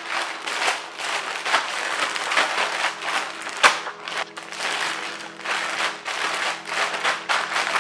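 Plastic zip-top bag crinkling and rustling in quick irregular bursts as hands squeeze and knead the chicken and vegetables in their oily marinade inside it, with one sharper crackle about halfway through.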